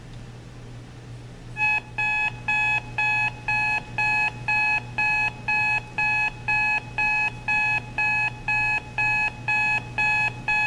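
Registry clock radio's alarm buzzer sounding: an evenly pulsed, high-pitched beep, about two beeps a second, starting a little over a second and a half in.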